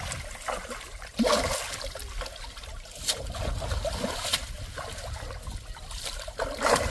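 Water splashing and trickling, with several sharper splashes, as live fish are pulled out of the water and handled.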